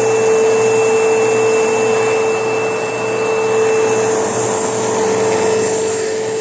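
ProTeam ProGen 15 upright vacuum cleaner running steadily, a constant motor whine over rushing airflow.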